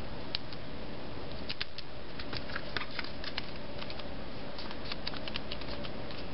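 Light, irregular clicks and taps of cardstock being handled, lined up and pressed onto adhesive dots, over a steady background hiss.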